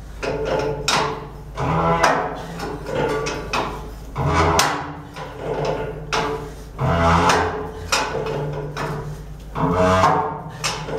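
Steel stay tube being wound into the threaded holes of a Cochran boiler's one-inch-thick tube plates, giving a series of resonant groaning creaks that come irregularly, one every second or two.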